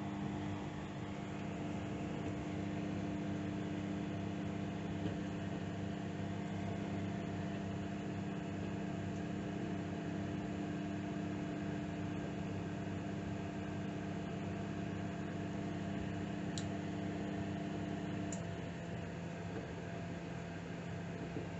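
Microwave oven running, a steady hum with several steady tones as it heats a cup of water. About eighteen seconds in, one of the tones drops out and the hum carries on.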